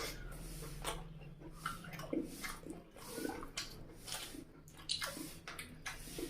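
Close-miked eating sounds: wet chewing, lip-smacking and mouth clicks, coming irregularly about two a second.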